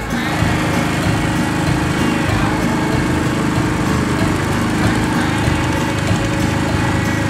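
Small engine of a chain-driven utility cart running steadily as it drives along at low speed.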